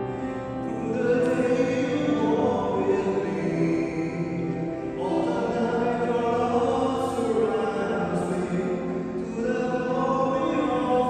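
Voices singing a slow hymn or chant, holding long notes in phrases, with short breaks about five seconds in and again near nine seconds.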